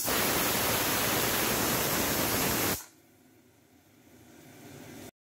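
Aluminium pressure cooker's whistle weight releasing steam in a loud, steady hiss as the cooker reaches pressure. The hiss cuts off suddenly a little under three seconds in, leaving a faint hiss that slowly builds again.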